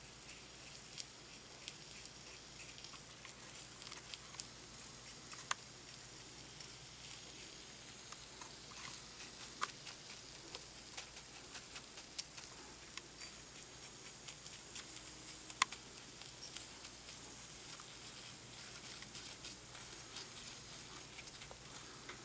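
Faint, irregular crackling and tiny pops from alum melting and bubbling in a metal spoon heated over a candle flame. There are a few sharper clicks, the loudest about five and a half and fifteen and a half seconds in.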